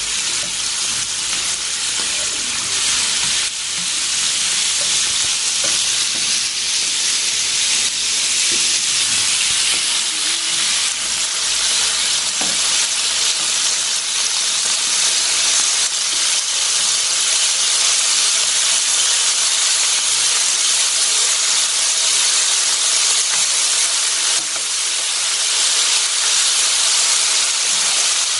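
Slices of pork belly, beef and shrimp sizzling steadily on a hot electric grill pan.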